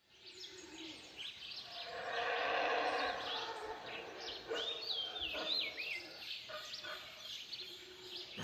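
Rainforest birds calling: scattered chirps and whistled notes, with a louder, lower drawn-out call in the first half and a run of falling whistled notes about halfway through.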